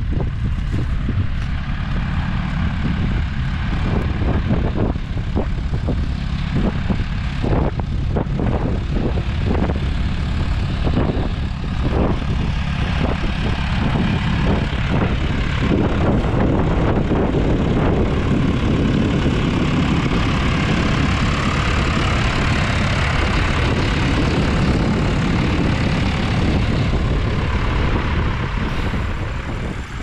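John Deere tractor's diesel engine running steadily under load while pulling a plough, growing fuller and louder as the tractor passes close by about halfway through.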